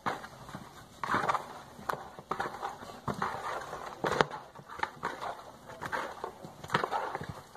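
Irregular knocks, taps and rustling of hands-on food preparation, a pan and utensils being handled as chicken is seasoned.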